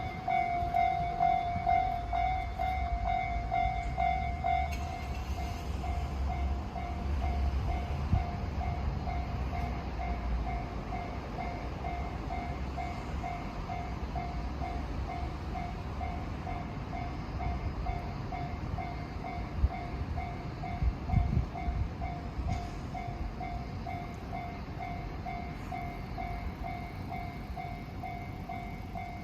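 Japanese level-crossing warning bell ringing in a steady, evenly repeating chime while a train rumbles past over the crossing, the rumble heaviest in the first ten seconds and then fading. A second, higher-pitched alarm tone stops about five seconds in.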